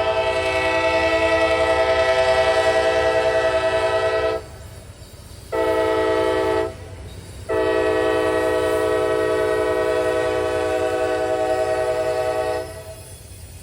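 Diesel locomotive air horn sounding a chord: a long blast ending about four seconds in, a short blast, then a long blast of about five seconds, the close of the long-long-short-long grade-crossing signal. A low rumble of the train runs underneath.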